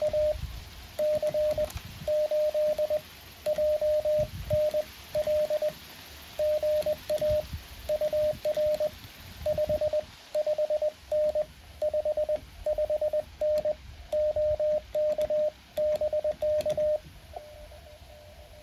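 Morse code from a Mountain Topper 4B QRP transceiver: one clear, steady beep keyed in dots and dashes, grouped into characters and words, stopping about 17 seconds in.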